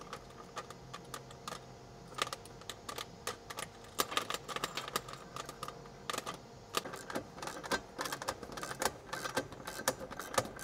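Irregular small metal clicks and clinks of bolt hardware being handled: nuts and sandwich plates going onto a rooftop tent's mounting bolts.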